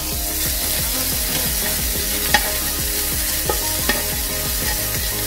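Bacon strips sizzling in a hot nonstick frying pan while being stirred with a spatula, with a few sharp taps of the spatula against the pan, the loudest a little over two seconds in.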